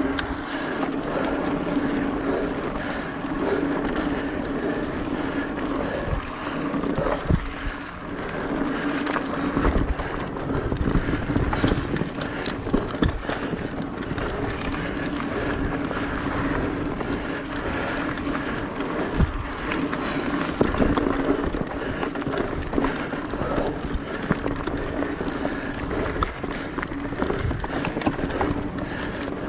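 Mountain bike rolling fast over dirt singletrack: continuous tyre-on-dirt noise with a steady low hum, and frequent knocks and rattles from the bike jolting over bumps and roots.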